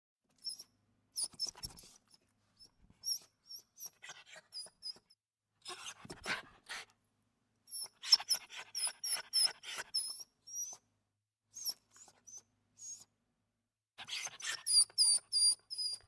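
Dog whimpering and crying: clusters of short, high-pitched squeaks, each dipping slightly in pitch, broken by pauses and by short breathy sounds. The squeaks come thicker near the end.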